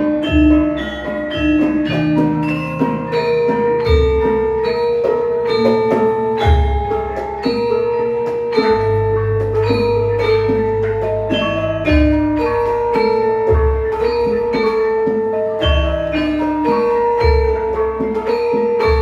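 Javanese gamelan ensemble playing: bronze metallophones struck in a dense, steady pattern of ringing notes, with deep low strokes every second or two and one long low tone held for a few seconds near the middle.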